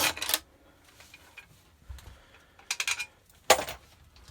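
Metal hand tools and bolts clicking and clinking in short bursts: once at the start, a rapid run of ticks just under three seconds in, and a sharper clatter about half a second later.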